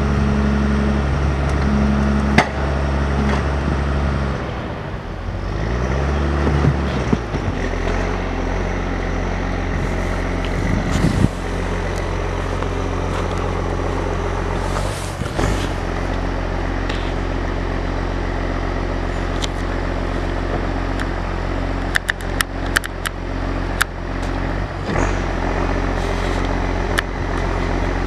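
John Deere 1110D forwarder's diesel engine running as the machine drives on its bogie-tracked wheels; the engine note shifts a few seconds in and then holds steady. A spell of sharp clicks and clanks comes near the end.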